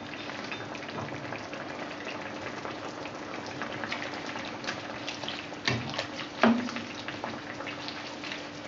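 Thai green curry simmering in a stainless steel frying pan, a steady bubbling and crackle, while a slotted spatula stirs through it. The spatula knocks sharply against the pan twice, a little under a second apart, about six seconds in.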